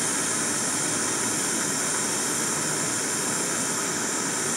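Gas torch flame hissing steadily, held on a red-hot wire joint while silver solder is fed in for brazing.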